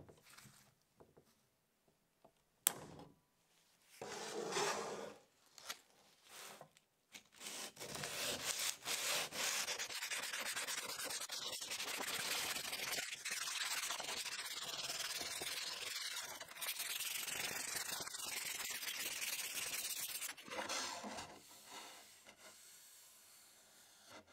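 Diagonal side cutters snip a nylon cable tie with a sharp click. Then sandpaper rubs steadily over a wooden tripod leg in continuous strokes for about thirteen seconds, fainter near the end.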